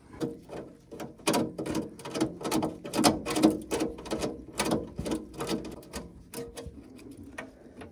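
Quick, irregular clicking and clattering of plastic and metal parts being handled and pushed aside inside an open gas combi boiler, thinning out near the end.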